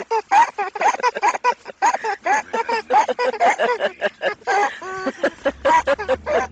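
A one-year-old baby laughing and squealing in rapid, high-pitched bursts, several a second, with a short held squeal about five seconds in.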